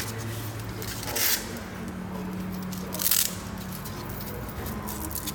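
Two short scrapes about two seconds apart, from hand work on orthosis brace parts, over a steady low hum.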